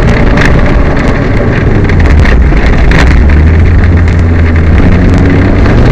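Peugeot 205 rally car engine running hard under a steady low note, with irregular clattering and rattling over the road noise. The car has a misfire.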